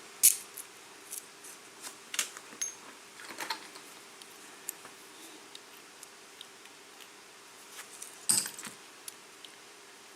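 Scattered small metal clicks and taps from handling the parts of a Kwikset KIK lock cylinder, its plug and pins. The sharpest click comes just after the start, with a small cluster of clicks about eight seconds in.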